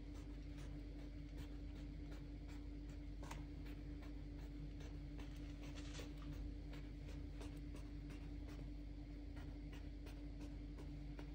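Wooden toothpick pricking a baked cocoa sponge cake all over: a run of faint, irregular little clicks, about two or three a second, over a steady low hum.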